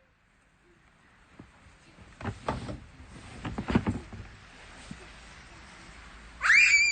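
A few short scraping rushes, then a child's high-pitched squeal with a falling pitch near the end.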